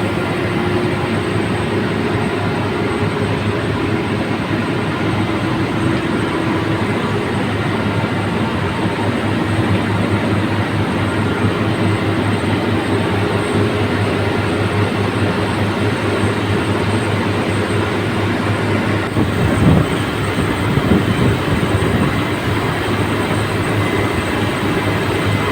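Drilling-rig machinery running steadily: a constant loud mechanical din with a low hum. A few louder knocks come about twenty seconds in.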